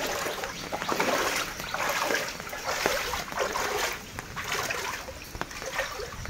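Shallow floodwater splashing as someone wades through it, a surge of splashing with each step, roughly once a second.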